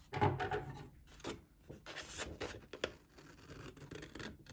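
Scissors cutting along a fold in thin card: a run of short, crisp snips with the rustle of the card being handled between them.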